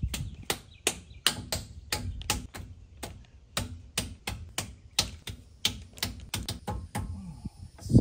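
Irregular series of sharp metal clicks and taps, about three a second, from hands working parts on the RV's front disc brake assembly as the brake caliper is being fitted.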